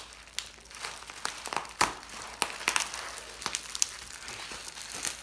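Bubble-wrap packaging crinkling and crackling as a craft knife cuts and tears through it and the packing tape. The crackles come irregularly, and the loudest is a little under two seconds in.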